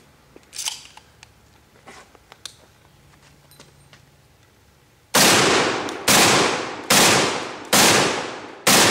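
A few faint handling clicks, then a 12-gauge shotgun loaded with triple-aught buckshot fires five loud shots in quick succession, about a second apart, each one trailing off before the next.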